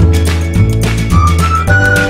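Background music: a high melody of held notes over a bass line and a steady beat.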